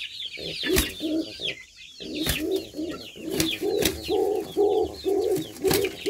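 Birds calling: a run of short, low calls, a few a second, under higher chirping, with about five sharp knocks scattered through.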